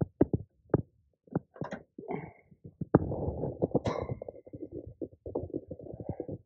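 Handling noise: fabric and the phone rubbing and bumping against the microphone. There are scattered sharp knocks and clicks at first, then dense rustling from about three seconds in.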